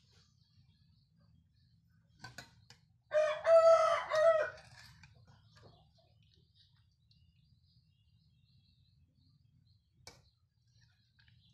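A rooster crowing once, about three seconds in, lasting about a second and a half. A few light clicks come shortly before it and again near the end.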